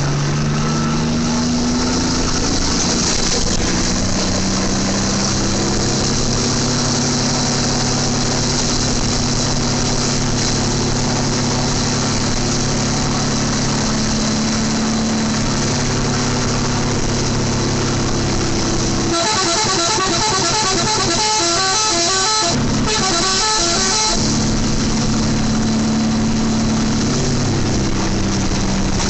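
Indonesian bus 'telolet' multi-tone horn playing a tune in long held notes that step from pitch to pitch. About two-thirds of the way through it switches to a fast run of quickly alternating higher notes for a few seconds, with one brief break.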